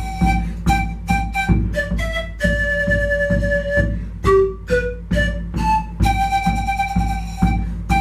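Bamboo siku (Andean panpipe) playing a breathy melody of short notes with two longer held notes, about two and a half and six seconds in, over a backing track with a steady low beat.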